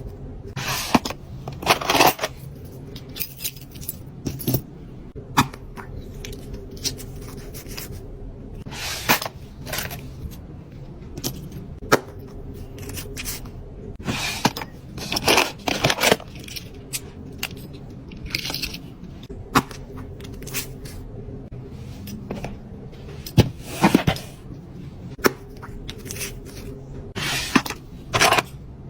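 Fingernails tapping fast and unevenly on packaging, with sharp separate taps and a few short scratching or rustling passages, around 2, 9 and 15 seconds in and near the end. A steady low hum runs underneath.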